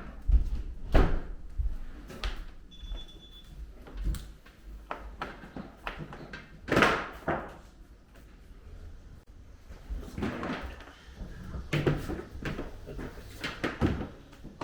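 Irregular knocks and thuds, like a door opening and closing and things being handled, with a brief high tone about three seconds in.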